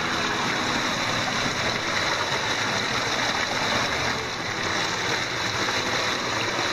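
Meltwater stream rushing steadily through a tunnel in the ice, pouring over ice and rocks.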